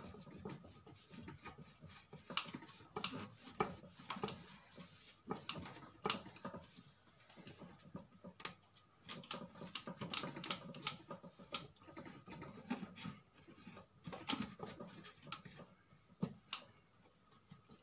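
Faint cloth wiping and rubbing over the plastic body of a blender, with irregular light scuffs and clicks as it is scrubbed.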